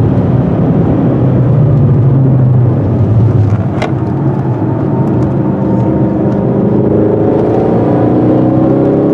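Supercharged Roush Ford Mustang's V8 heard from inside the cabin, pulling hard at high speed, easing off with a dip in level about three and a half seconds in, then climbing steadily in pitch as it accelerates again.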